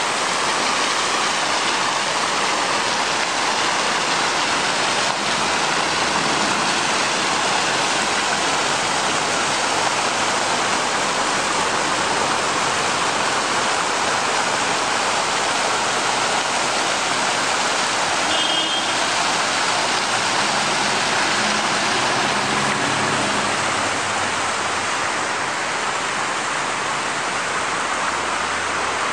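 Fountain water splashing: jets falling into an ornamental pool and water spilling over a stepped stone cascade, a steady even rush that eases slightly near the end.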